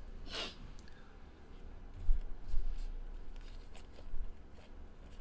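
Baseball cards being handled and flipped through by hand: a soft swish about half a second in, then faint clicks and rustles of card edges over a low rumble.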